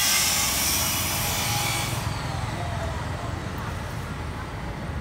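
Street ambience with traffic rumbling. A loud hiss runs over it until about two seconds in, then the low rumble carries on alone.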